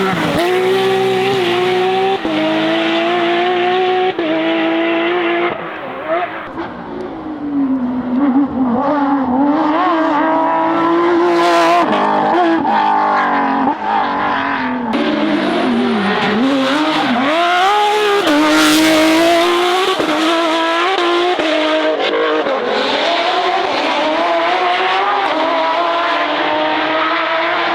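Porsche rally cars driven hard on a stage, engines revving high, with revs stepping through gear changes and sweeping down and up again as they brake for corners and accelerate out. The sound dips quieter for a couple of seconds about six seconds in.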